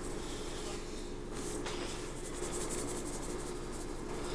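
Steady faint electrical hum with a light hiss: room tone.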